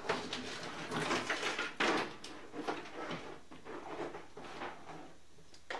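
Car wiring loom being pulled through the bulkhead from inside the car: irregular rustling and scraping of the bundled wires and plastic connector blocks, with a louder scrape about two seconds in.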